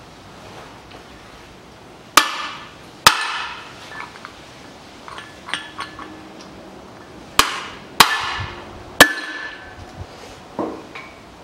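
Hammer blows on the rear wheel hub of a 2005 Land Rover Defender, knocking out the old wheel bearing: five sharp metallic strikes that ring, two about a second apart and then three in quick succession, with lighter clinks between them.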